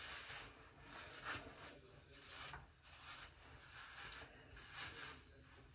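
A hairbrush dragged through hair in repeated short strokes, about two to three a second, a faint rasping rub.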